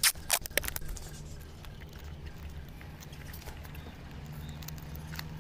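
Packing tape and a small rocket being handled against a toy car: a few sharp clicks and snaps in the first half second, then faint scattered ticks over a steady low hum.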